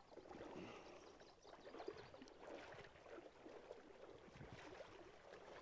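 Near silence, with faint, irregular splashing and sloshing of shallow river water around a wading angler's legs.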